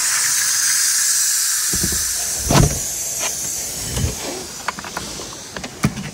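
Pressure cooker's release valve venting steam in a loud, steady hiss that gradually weakens, letting the pressure out at the end of cooking. A few knocks and thumps of handling come about two and four seconds in.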